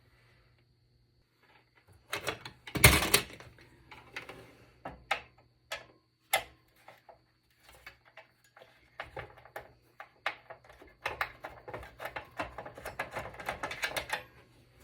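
Plastic and metal clicks and knocks from the fan shroud inside a Dell desktop PC as it is worked at and unscrewed. There is a loud clatter about three seconds in, then scattered clicks, then a dense run of rapid clicking over the last few seconds.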